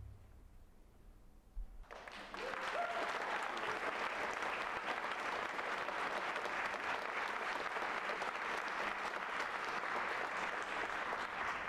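Theatre audience applauding at the end of the performance, breaking out about two seconds in after a near-silent pause and holding steady.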